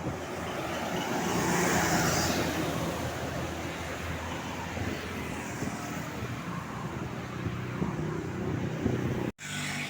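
Road traffic: a vehicle passes close by, its noise swelling about two seconds in and then fading, over a steady engine drone. The sound drops out abruptly near the end.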